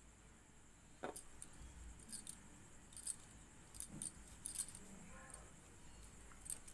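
Faint scattered small clicks and rustles of a crochet hook and wool yarn being worked by hand while chain stitches are made.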